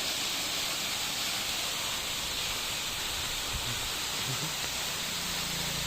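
Steady rushing hiss of falling water from a small waterfall.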